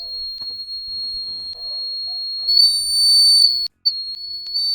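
The buzzer of a homemade laser-and-LDR security alarm sounds a steady high-pitched tone, growing louder about two and a half seconds in. It cuts out for a moment near the end, then sounds again. A sounding buzzer means the alarm is tripped: the laser beam is not reaching the light sensor.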